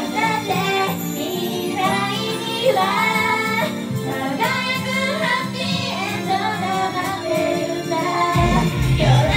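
Japanese idol-pop song performed live: female voices singing over a recorded backing track, with a deep bass part coming in near the end.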